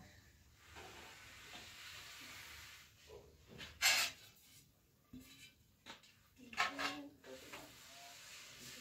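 Large round metal trays clattering against each other as they are handled and stacked, with two loud clangs that ring briefly, about four and about seven seconds in. Before them comes a soft rustling hiss.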